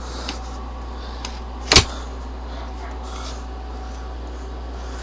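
A single sharp clack of an air rifle being handled, about two seconds in, among a few faint clicks and rustles, over a steady low hum.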